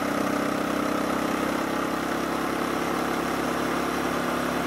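Honda Grom 125's single-cylinder engine through a Moriwaki ZERO full exhaust, running at a steady pitch while riding at speed, with wind rushing over the microphone.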